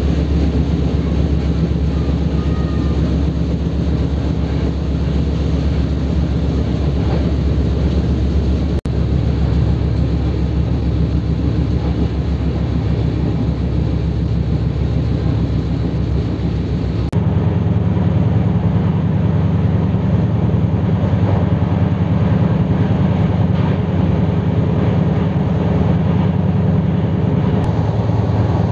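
Steady running noise of a moving passenger train of LHB coaches: wheels rumbling on the rails. About two-thirds of the way through, the sound shifts suddenly to a deeper, duller rumble.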